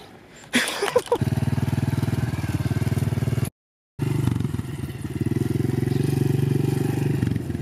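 Honda CRF110 pitbike's small single-cylinder four-stroke engine running steadily at low revs as the bike rides off, starting about a second in. The sound drops out completely for half a second about halfway.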